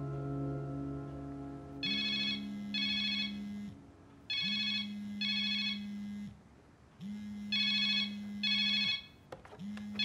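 A telephone ringing four times, about two and a half seconds apart, each ring a pair of rapid trills, as background music chords fade out in the first two seconds.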